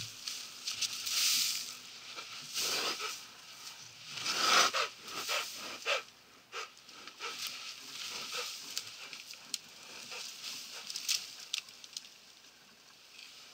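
Black rhino cow waking from sedation and getting up and pushing into the bush: leaves and branches rustling and snapping, and feet scuffing the sand. Several loud rushing breaths in the first few seconds.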